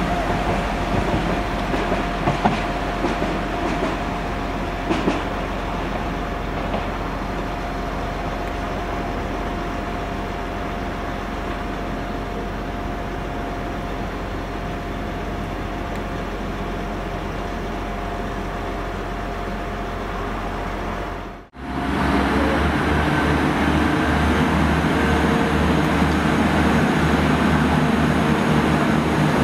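A Class 172 diesel multiple unit running along the station tracks, its engine noise steady with a few sharp wheel clicks in the first seconds. After an abrupt break about two-thirds through, a Class 175 diesel multiple unit idles at the platform with a steady, pulsing diesel throb.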